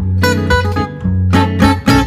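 Background music: acoustic guitar, plucked and strummed notes in a steady rhythm.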